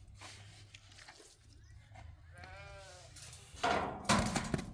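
A sheep or goat bleats once about two and a half seconds in, a short wavering call, followed by a louder, harsher stretch of sound near the end.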